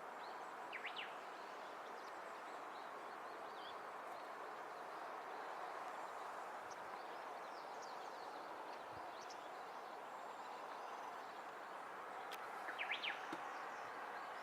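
Quiet outdoor ambience: a steady background hiss of environmental noise, with small birds chirping briefly about a second in and again in a short burst near the end.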